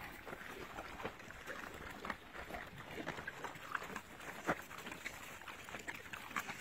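Pigs eating fruit: irregular chewing and crunching, a busy run of short clicks with one louder crack about four and a half seconds in.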